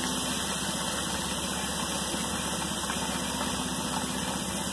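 A steady mechanical hum with hiss, unchanging in level throughout.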